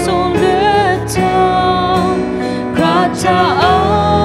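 A woman and a man singing a worship song together to a strummed acoustic guitar.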